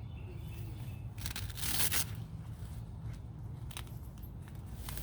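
Soil pouring and sliding out of a tipped potato grow bag: a crumbly, crackling rush about a second and a half in, followed by a few scattered crackles and clicks.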